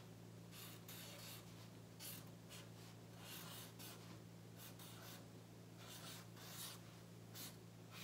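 Felt-tip marker writing on paper: faint, uneven strokes as a word is written out by hand.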